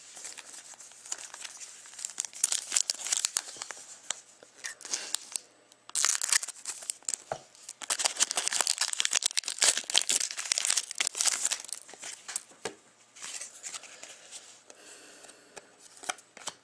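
Foil trading-card pack wrapper being torn open and crinkled by hand, in irregular bursts of crackling. The crinkling is densest in the middle, after a brief pause, and fades to lighter rustling near the end.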